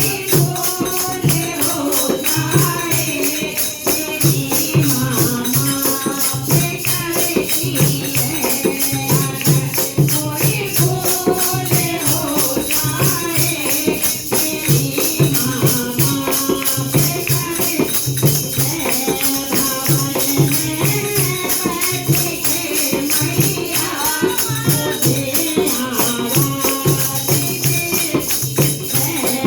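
Hindi devotional bhajan: a voice singing a melodic line over a steady, even percussion beat.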